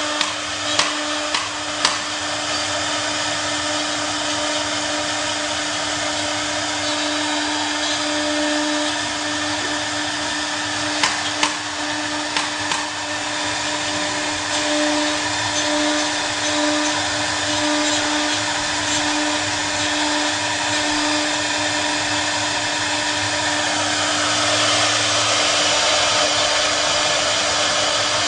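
CNC router spindle running steadily with a constant hum-like tone and a wide hiss, with a few sharp clicks near the start and again around the middle. The hiss grows louder and brighter near the end.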